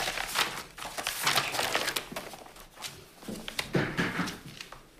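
Sheets of paper rustling and flapping as a stack of pages is leafed through quickly, dying down toward the end.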